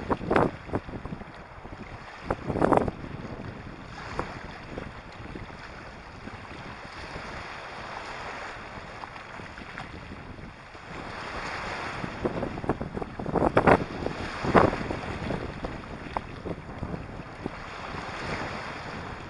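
Small sea waves breaking and washing over a pebble shore, with wind buffeting the microphone. A few louder surges stand out, twice in the first three seconds and twice in the second half.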